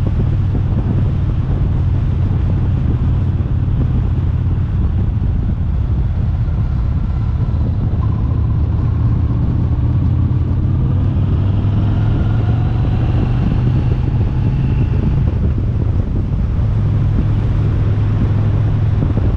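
Car being driven: steady low engine and road rumble.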